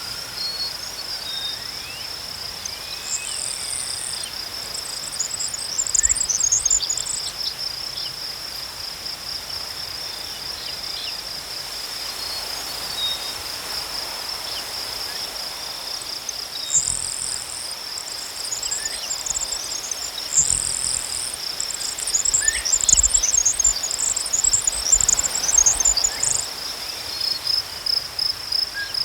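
Crickets chirping in a steady, fast-pulsing trill. Bursts of higher, chattering calls come and go over it, twice for several seconds.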